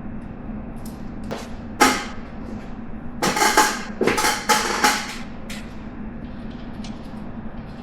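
Metal clinks and clanks of a wrench and bolt being handled and fitted while a new alternator is bolted onto its bracket: two single knocks, then a quick cluster of clanks and one last clink, over a steady low hum.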